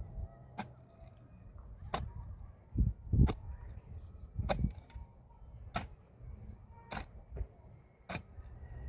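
A series of sharp knocks, about one every second, with two heavier dull thumps near the middle.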